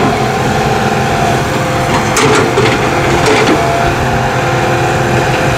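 Excavator's diesel engine running steadily while it grades soil, with a few clanks and scrapes from the bucket and tracks about two and three seconds in.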